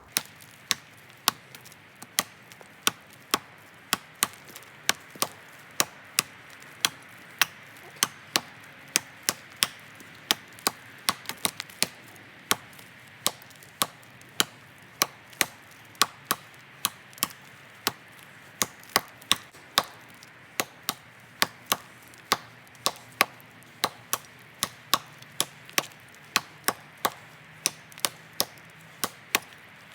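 A large tracker-style knife chopping into a frozen tree trunk: sharp, steady blows at about two a second, with a quicker flurry of strikes near the middle.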